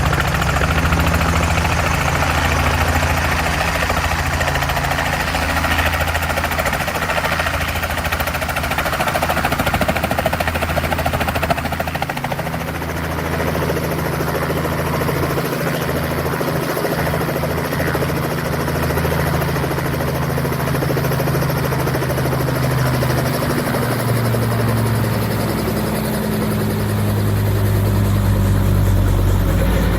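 Robinson R44 helicopter running: its six-cylinder Lycoming piston engine and rotors make a steady, loud drone. Over the last few seconds the engine note shifts in pitch.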